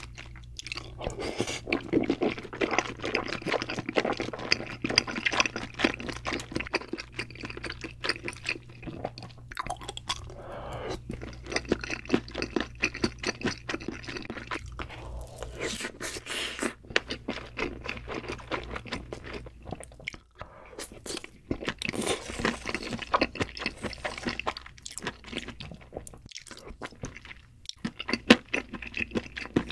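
Close-miked ASMR eating sounds: wet, clicky chewing of wide flat noodles and meat in thick spicy sauce, going on in irregular runs with short pauses.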